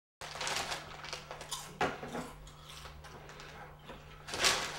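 Crinkly plastic potato-chip bag rustling irregularly as a hand rummages in it, over a steady low hum, with a louder burst of noise near the end.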